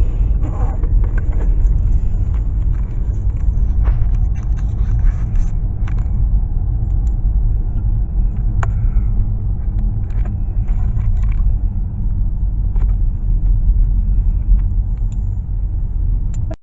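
Steady low rumble of a car driving, heard from inside the cabin, with a few faint clicks and knocks.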